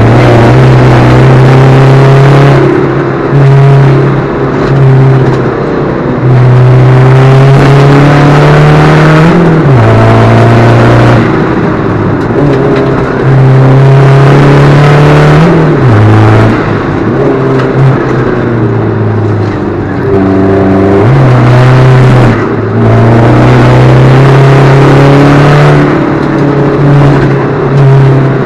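Alfa Romeo 147 JTD's four-cylinder turbodiesel engine under hard acceleration, climbing in pitch through each gear. The pitch drops sharply at the gear changes, about a third of the way in, just past halfway and about three quarters of the way through.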